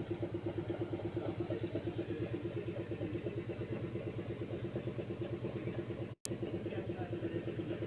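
An engine running steadily at idle with an even, rapid beat. The sound drops out for a moment about six seconds in, then resumes unchanged.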